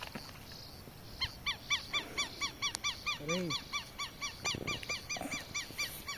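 A bird giving a fast series of short, harsh honking call notes, about four a second, starting about a second in.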